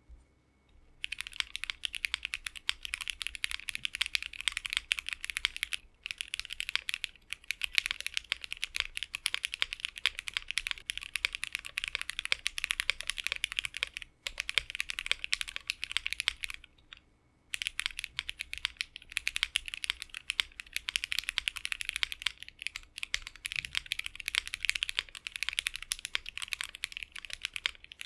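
Fast typing on a Bakeneko60 60% custom mechanical keyboard with JWK Black linear switches, an FR4 plate and GMK ABS keycaps, on a gummy O-ring mount: a 65A O-ring first, then the stock 50A O-ring after a short break partway through. Dense runs of keystroke clacks start about a second in, with brief pauses between runs.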